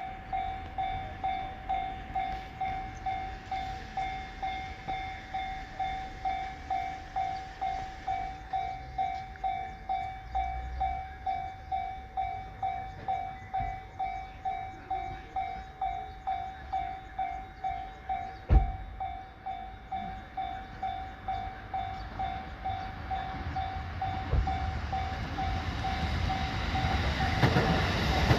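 Japanese level-crossing warning bell ringing, a single tone repeating about twice a second, as a train approaches on the Kagoshima Main Line; the train's rumble rises over the last few seconds. One sharp knock about two-thirds of the way through.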